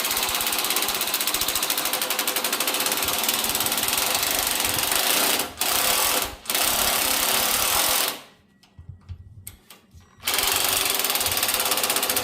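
A power tool running with a loud, fast, even pulsing rattle. It cuts out briefly twice around the middle, stops for about two seconds near the end, then starts up again.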